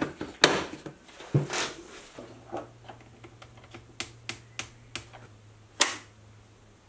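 Light clicks and taps of hands handling plastic coolant plumbing: the pump and clear tubing knocking on a plastic tub, then the clear tube being worked onto a white acetal connector. One sharper click comes near the end, and a faint low hum starts about two seconds in.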